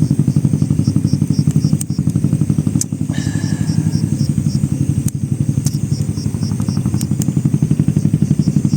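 A small engine running steadily at idle with a rapid, even pulse.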